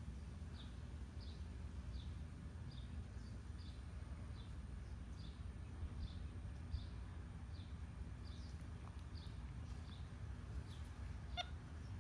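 A bird chirping steadily, a short high chirp repeated about twice a second, over a low background rumble.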